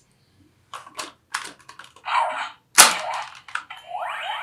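Plastic clicks and snaps as discs are swapped and fitted onto a Ben 10 Disc Ultimatrix toy, with the sharpest crack near the middle. Near the end the toy's electronic sound effect starts, with rising sweeping tones from its small speaker.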